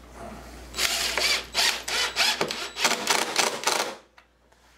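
DeWalt cordless impact driver driving a screw through a pine board into the CNC spoilboard, to pull the twisted board down flat. A softer spin-up leads into two runs of rapid hammering impacts with a short break between, and the tool stops abruptly about four seconds in.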